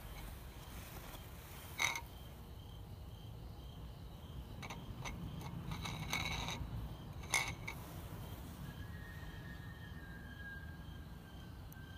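A cat eating from a ceramic bowl: the bowl clinks sharply twice, with softer clicks from eating between. Crickets chirp with an even pulse throughout.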